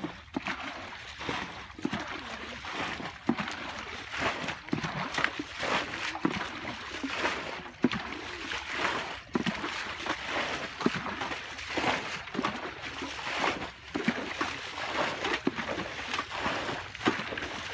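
Irregular splashing and sloshing of shallow muddy water as people wade through it and grab at fish by hand, many short splashes one after another.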